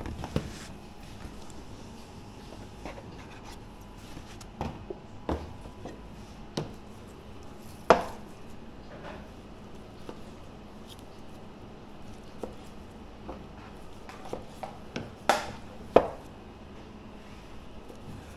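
Irregular knocks and taps of sushi preparation, a knife and utensils against a cutting board, over steady low background noise. The loudest knocks come about eight seconds in and twice close together near the end.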